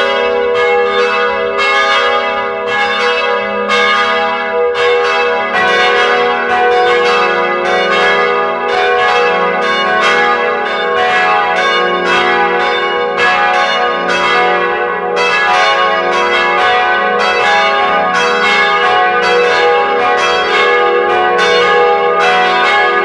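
Church bells pealing, struck about twice a second with each strike's ringing overlapping the next in a continuous dense peal.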